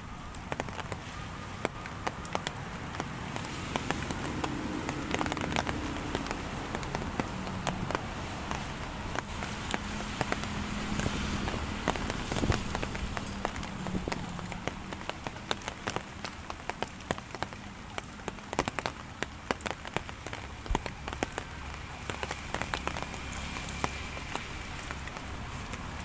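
Drizzle falling on leaves and vegetation: a steady hiss with many small drip ticks scattered through it.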